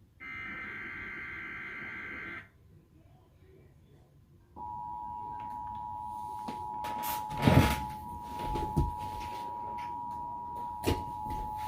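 Emergency Alert System broadcast tones. It opens with the end of a SAME header data burst, a steady buzz of high data tones that stops after about two seconds. After a short pause the EAS attention signal begins, a steady two-tone beep. A few louder knocks break in over the beep about midway, the loudest of them around two-thirds of the way through.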